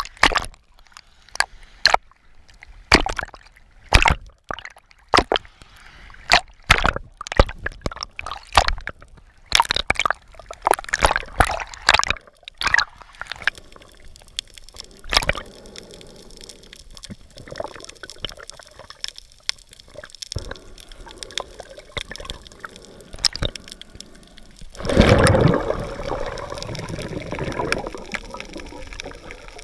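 Water splashing and sloshing at the surface in quick, irregular bursts, then the muffled steady hiss of the water once under, with a louder gushing surge about 25 seconds in.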